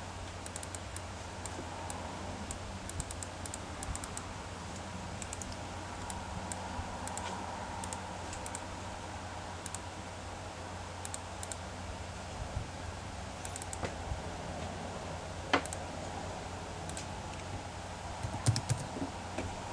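Faint, scattered clicks of a computer mouse and keys over a steady low hum of room noise. There is one sharper click about fifteen seconds in and a short flurry of clicks near the end.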